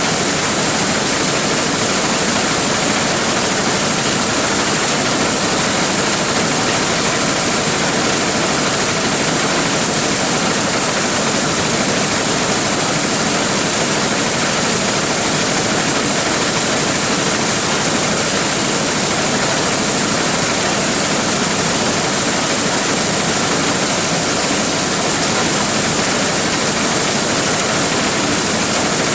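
Large engine-driven corn sheller running steadily, a loud unbroken rushing noise of motor and threshing drum.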